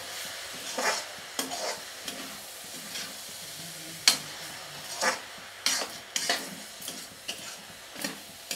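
A perforated metal ladle scraping and stirring bathua greens and potatoes in an iron kadhai, over a steady sizzle of frying. The scrapes come irregularly, about one a second, the loudest about four seconds in.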